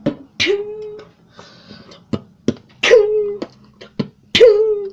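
A boy's voice giving three short sung-out calls, each jumping up in pitch and then held briefly with a slight dip, with sharp clicks in between.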